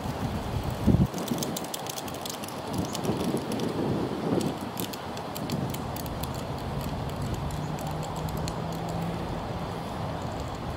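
Wind buffeting the microphone, with a sharp gust about a second in and irregular light clicking and rustling through the first half. A low steady hum comes in about halfway through and holds.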